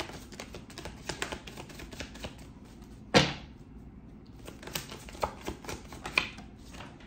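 Tarot deck being shuffled from hand to hand: a run of quick, soft card clicks and flutters, with one louder knock about three seconds in.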